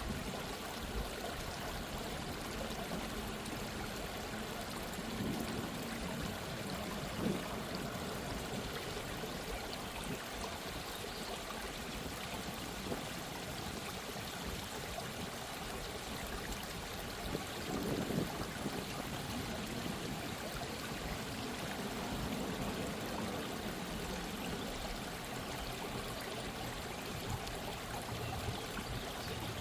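Gentle stream of running water flowing and trickling steadily, with a few slightly louder splashes.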